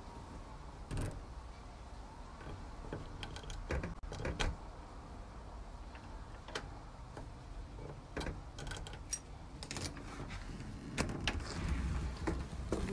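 Keys on a keyring jangling and clicking against a brass doorknob lock and deadbolt as keys are pushed in and turned, with scattered sharp metallic clicks and handling noise.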